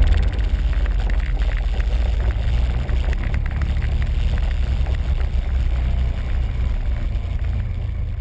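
Quad bike (ATV) engine running under way along a bumpy dirt track, a steady deep rumble with noise of the ride, easing off slightly near the end.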